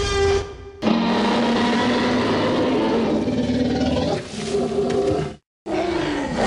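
Dubbed-in dinosaur roar sound effects: long, sustained, pitched roars spliced one after another. The sound breaks off briefly about half a second in and cuts out completely for a moment near the end, after which a falling roar follows.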